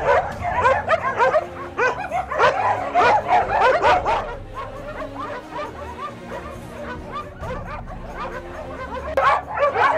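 Several shelter dogs penned together barking and yelping at once, many overlapping barks, densest in the first few seconds, thinning out in the middle and picking up again near the end.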